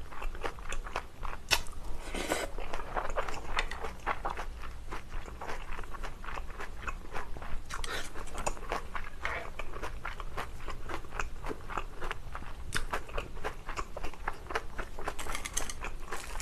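Close-miked chewing of a mouthful of kimchi fried rice with Spam, flying fish roe and chopped chili peppers: wet chewing with a quick, steady run of small clicks. Near the end a dry rustle as a sheet of dried seaweed is handled.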